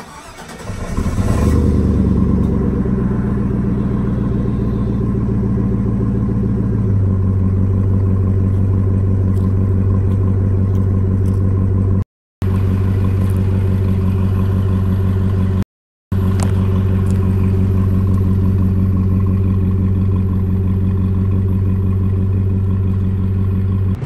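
GMC pickup truck engine starting up and running at a raised idle, then dropping to a lower, steady idle about seven seconds in, heard from behind the truck at the exhaust. The sound cuts out briefly twice.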